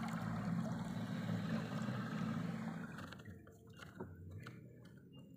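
Costway 55 lb 12-volt electric trolling motor running in reverse: a low steady hum with its propeller churning the water. The hum fades about three seconds in, and a single click comes about a second later.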